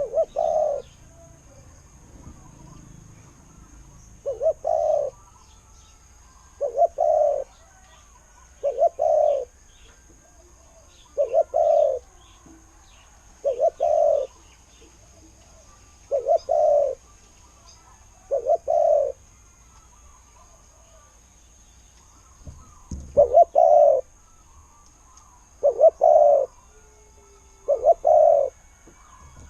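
Spotted dove cooing, one short phrase of coos roughly every two to three seconds, about eleven phrases in all, with a pause of a few seconds past the middle.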